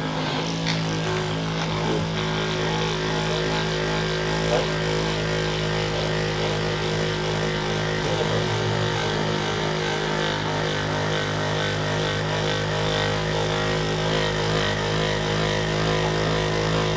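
A steady mechanical hum with a low drone, unchanging in pitch and level.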